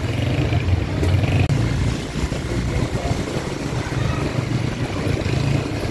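Small motorcycle engine running steadily while riding along a street, with road noise.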